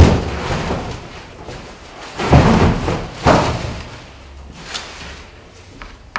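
Packaging being handled: three loud thuds and scrapes, at the start, about two seconds in and about three seconds in, then lighter knocks and a sharp click near the end.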